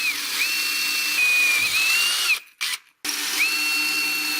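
Electric drill boring corner holes through a talc-chlorite stone facing slab: a high motor whine that speeds up and slows with the load, stops briefly just past halfway, then spins up again.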